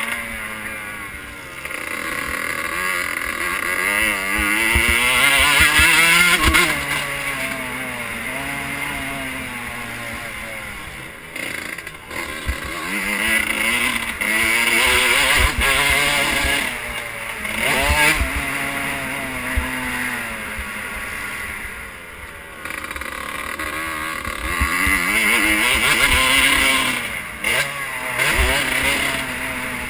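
Motocross bike engine revving hard and easing off again and again, its pitch climbing and falling several times as the throttle is opened and closed between corners, under a steady rush of wind on the onboard microphone.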